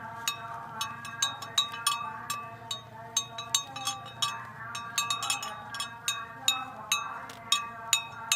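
Cowbells on grazing cattle clanking irregularly. Many sharp strikes, often several a second, each with a ringing tone.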